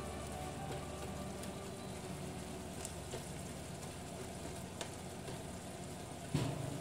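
Shrimp in a red butter sauce sizzling and bubbling in a frying pan, stirred with a wooden spatula, with a few light clicks and one short knock near the end.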